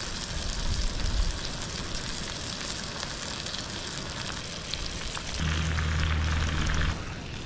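Wind buffeting the microphone outdoors, a steady crackly hiss with low rumbling gusts. A low steady hum joins it for about a second and a half near the end.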